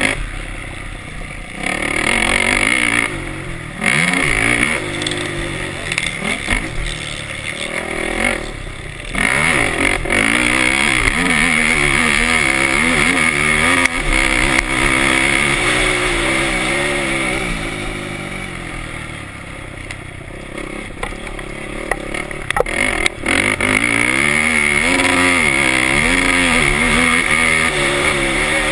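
Racing quad's engine revving hard as it pulls up through the gears, again and again. It backs off briefly about three, four and nine seconds in, and longer in a quieter stretch near the two-thirds mark, then pulls hard once more.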